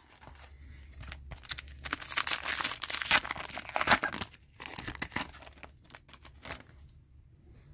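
Foil wrapper of an Upper Deck hockey card pack being torn open and crinkled, loudest about two to three seconds in, then a few shorter crinkles as it is pulled off the cards.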